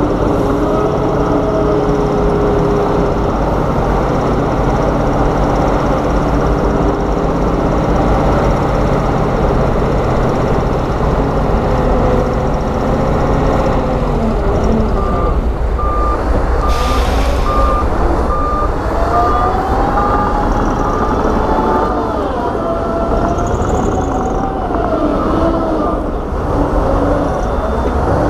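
Heavy diesel earthmoving machinery running, its engine pitch rising and falling under load. About halfway through, a reversing alarm beeps about once a second for several seconds, and there is a brief hiss partway through the beeping.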